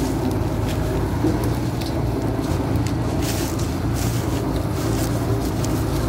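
Combine harvester's diesel engine and machinery running steadily as the machine moves through a corn field, a continuous low hum.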